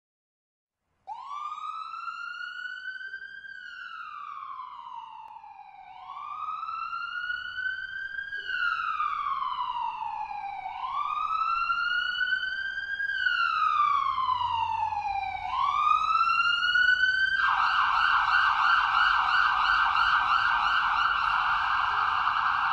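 Ambulance siren starting about a second in: four slow wails, each rising and falling over about four seconds, then switching near the end to a rapid yelp. It grows louder as it draws closer.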